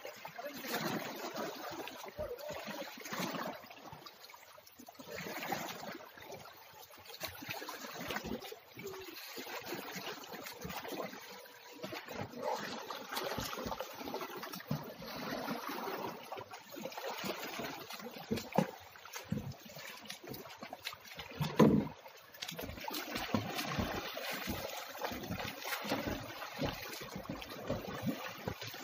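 Water splashing and trickling in irregular bursts, with two louder thumps about two-thirds of the way through.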